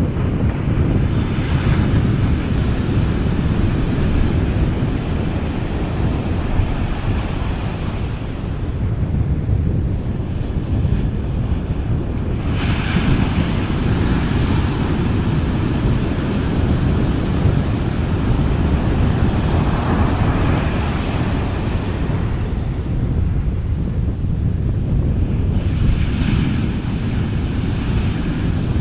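Sea waves breaking and washing up a beach in slow surges, four of them standing out, over a steady low rumble of wind on the microphone.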